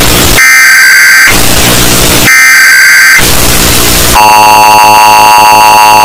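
Emergency Alert System alarm, distorted and played at clipping volume. Screeching data-burst tones about a second long alternate with stretches of harsh noise, then about four seconds in the steady two-tone EAS attention signal sounds.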